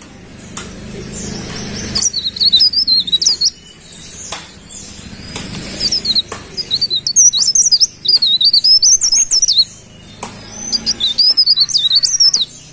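Cikrak daun, a small leaf warbler, singing: about four bursts of rapid, high, zig-zagging trilled notes, each around a second or more long, with short pauses between them.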